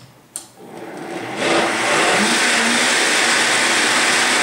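Vitamix high-powered blender switched on with a click, its motor speeding up over about a second and then running loud and steady, puréeing a dressing of apricots and zucchini squash.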